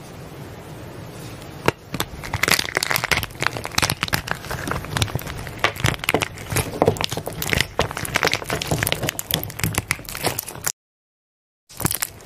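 Slime being squeezed and pressed by hand, giving a dense run of crackling and popping clicks. The clicks break off for about a second near the end, then resume.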